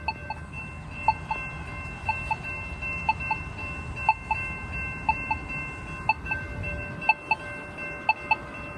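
Polara iNS accessible pedestrian signal push buttons sounding their locator tone: short ticks repeating about once a second, each heard as a pair. A low rumble underneath dies away near the end.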